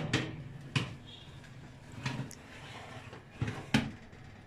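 Metal baking tray being slid into an oven and knocking against the oven rack and rails in several sharp clunks, the two loudest close together near the end.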